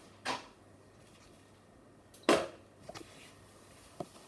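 A few short knocks and clicks from handling the Electrolux washing machine's controls while selecting the spin program: one near the start, a louder one about two seconds in, and a faint click near the end.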